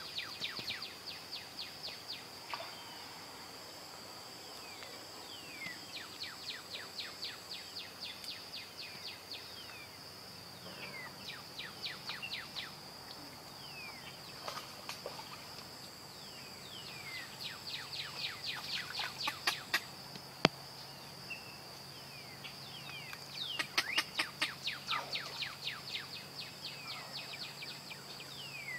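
Natural outdoor chorus: a steady, high-pitched insect drone, with bouts of fast, repeated chirping calls every few seconds. One sharp click comes about two-thirds through.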